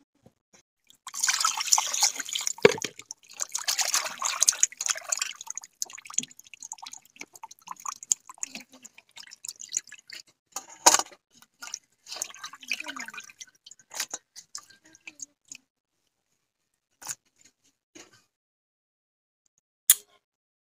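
Water splashing and sloshing in irregular bursts as hands rub and rinse cut fish pieces in a bowl of water. It dies away about three-quarters of the way in, leaving a few sharp ticks near the end.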